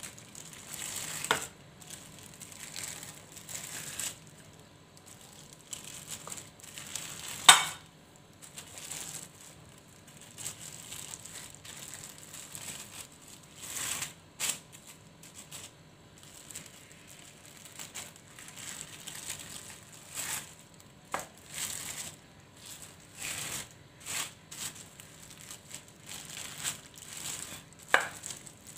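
Plastic sheet crinkling and rustling as pastry dough is rolled out on it with an empty bottle used as a rolling pin. A few sharp knocks cut in, the loudest about seven seconds in.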